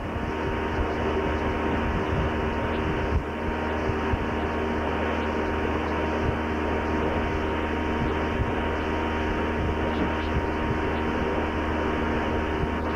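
Motorboat engine running steadily at towing speed, heard from aboard the boat, with an even hum and no change in pitch.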